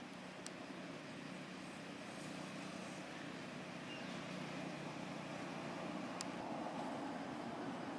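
Steady low hum of distant motor-vehicle traffic, slowly growing louder, with two faint clicks, one about half a second in and one about six seconds in.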